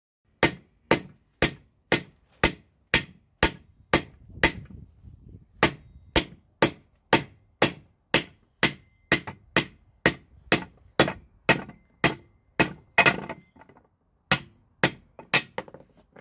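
Hammer blows on the steel wishbone of a VW T25/Vanagon upper control arm, driving out its old bushings, whose rubber has perished. About two sharp, ringing metal strikes a second, kept up with two short breaks.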